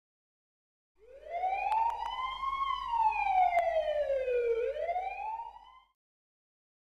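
Emergency-vehicle siren wailing: one tone rises, falls slowly, then starts rising again before fading out, with a few faint clicks in the first half.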